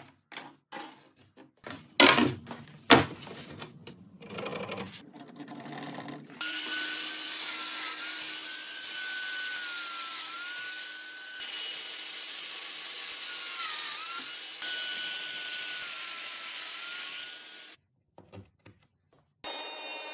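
A few knocks and taps on wood, two of them loud, then a power tool running steadily for about eleven seconds. Its whine dips briefly in pitch a few times, and it cuts off suddenly.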